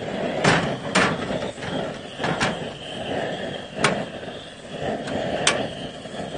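About five sharp metallic clinks and knocks as a yellow aluminium pot of kimchi is set on a portable gas stove and handled, over a steady hiss.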